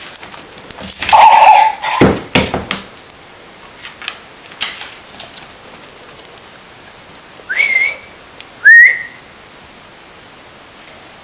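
A dog playing with a barking toy ball: a short held bark-like call about a second in, sharp knocks and thuds of paws and toy, then two short rising squeals near the end.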